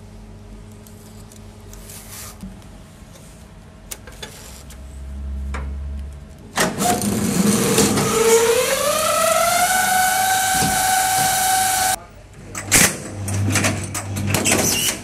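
Automatic strapping machine's motor starting up: a rising whine that levels off, runs steadily for a few seconds, then cuts off sharply. A few sharp clicks and clunks follow near the end.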